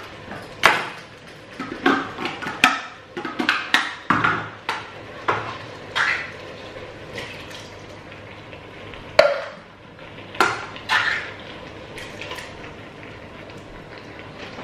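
Metal tins knocking and clinking against a stainless steel cooking pot as chopped tomatoes are tipped and scraped in. There is a quick run of sharp knocks in the first six seconds, then a few single knocks further apart.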